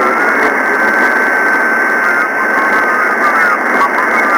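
Single-sideband receiver hiss from FO-29's linear-transponder downlink through an SDR. A steady whistling carrier tone runs over it, and near the end there is faint warbling from an off-tune station.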